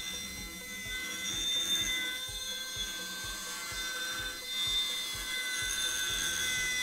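Compressed-air VSpin deburring spindle running at speed, its cutter deburring the edge of a cast metal part: a steady high whine of several held tones that swells and eases as the tool follows the contour.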